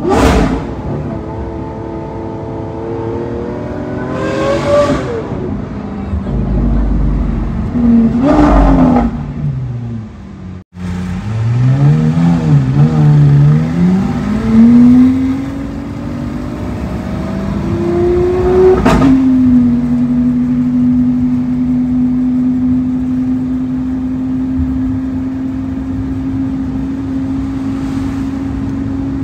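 Sports car engine revving and accelerating, its pitch climbing and falling in several pulls. For the last third it holds a steady drone at constant revs.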